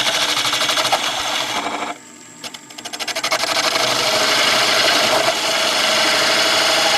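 Detail gouge cutting a small wooden top blank spinning on a wood lathe: a loud scraping cut with a fast, even flutter. The cut breaks off about two seconds in as the tool lifts, then builds back up and carries on.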